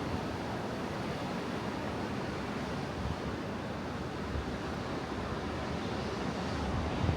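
Atlantic Ocean surf washing steadily onto a beach, with low wind rumble on the microphone near the end.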